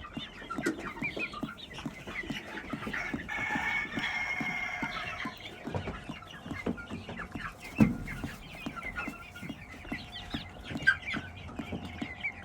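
Chickens clucking and calling, with one longer drawn-out call about three seconds in. A single sharp knock comes near the eight-second mark.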